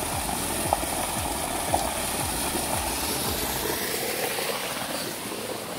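Water gushing at full flow out of a submersible pump's 4-inch plastic delivery pipe and splashing onto the ground: a steady rushing hiss. The deeper part of the rush drops away after about four seconds, and two short clicks sound in the first two seconds.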